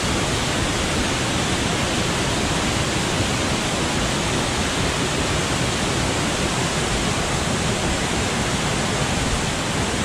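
Steady rushing of a waterfall close up: brown, rain-swollen water pouring over a rock ledge into a pool below.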